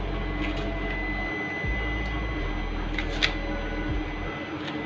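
Punch-down tool clicking as wires are repunched into a telephone terminal block: a few short sharp snaps, the loudest about three seconds in, over a steady background hum with a faint high whine.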